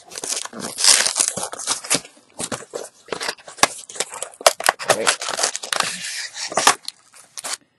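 Cardboard and clear plastic packaging of a trading-card intro pack being torn and pulled open by hand: a run of tearing and crinkling with many sharp snaps, dying away near the end.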